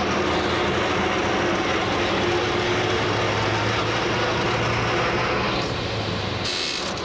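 1935 Ford truck's flathead V8 running under way, heard from inside the cab, with steady engine drone and road and body rattle noise. Near the end the engine sound drops away briefly behind a short hiss.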